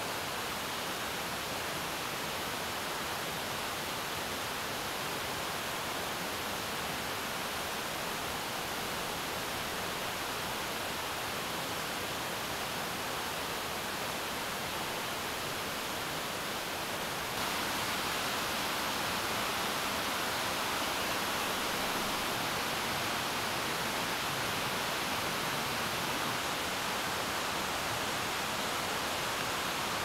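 Steady rush of a mountain headwater stream, a little louder from just past halfway.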